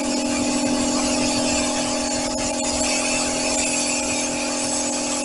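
Air-fed spray gun hissing steadily as it sprays upholstery glue onto foam, with a steady hum underneath; the spray breaks off briefly twice a little before halfway.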